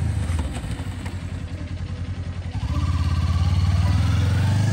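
Kawasaki Ninja sport bike engine running. It drops to a low, pulsing note as the bike slows, then is opened up again about two and a half seconds in, getting louder and rising in pitch as the bike accelerates.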